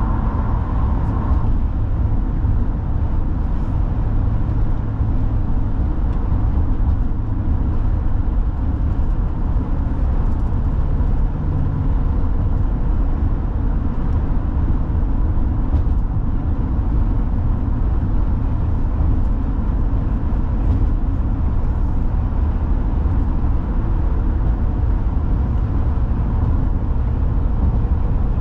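Steady low rumble of a car driving at highway speed: tyre and road noise with the engine underneath, holding even throughout.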